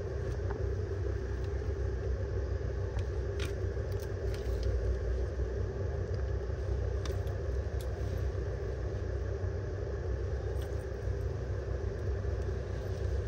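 Steady low rumble and hum with a few faint clicks.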